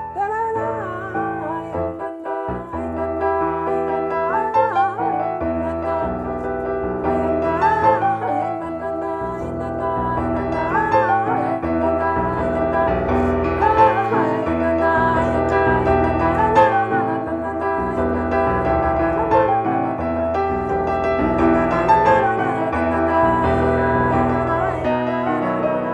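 A slow nigun melody with vibrato played over sustained keyboard chords and bass notes.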